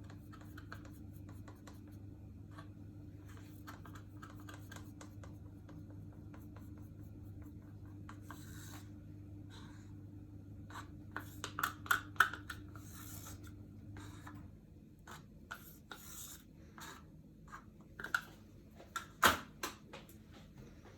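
Light scraping, rubbing and tapping of plastic paint cups and a stirrer being handled while paint is poured, with a few sharper clicks. A low steady hum runs underneath and stops about two-thirds of the way through.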